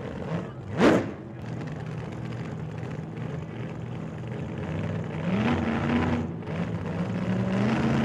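Car engine running with a sharp rising rev about a second in, then a steady run whose pitch climbs again around five seconds in and near the end.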